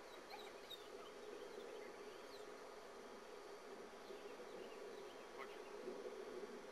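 Faint, steady insect buzzing, with a few faint high chirps scattered through it.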